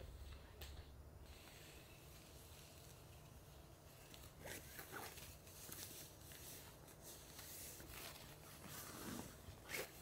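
Faint rustling and brushing of cloth as a dog outfit is pulled on over a Pomeranian, in soft scattered strokes that start about four seconds in.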